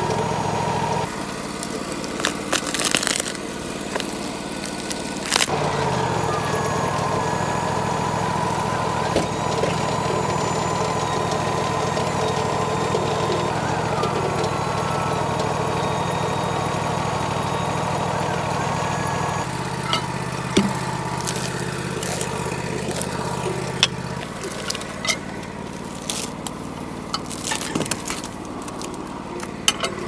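Wood-Mizer LT40 portable sawmill's engine running steadily, its load and pitch shifting several times with a brief rising glide as the hydraulic log loader lifts the log onto the deck. Over the last several seconds, sharp clanks and knocks come from the log being rolled with cant hooks.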